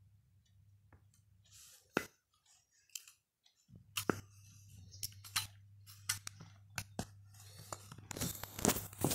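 Handling noises from a metal powder tin and its lid: scattered sharp clicks and taps, then denser scraping and rustling near the end, over a low steady hum that cuts out for a moment about two seconds in.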